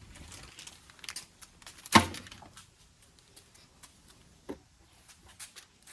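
Parts being taken off a car's damaged rear end: a single sharp knock about two seconds in, with a few light clicks around it and a softer knock near the end.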